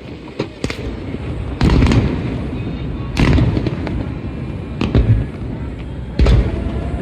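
Aerial fireworks shells bursting overhead: about six sharp booms, two small ones early and four big ones spaced roughly a second and a half apart, each trailing off in a low rumbling echo.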